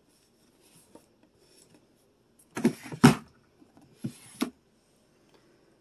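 A dresser drawer sliding on its runners and shutting with a sharp knock about three seconds in, then a second short slide about a second later.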